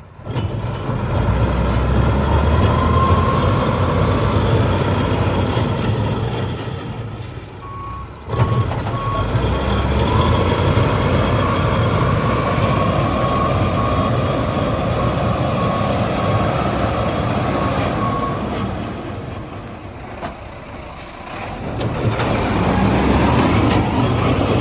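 Cummins diesel engine of a 1994 International 2674 truck running, with a high beeping tone sounding through the middle stretch. There is a short break and a sudden restart about eight seconds in.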